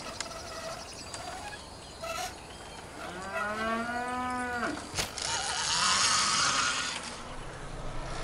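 A cow mooing once, a long call that rises and then falls in pitch, about three seconds in. Just after it ends comes a sharp knock, followed by about two seconds of louder rushing noise.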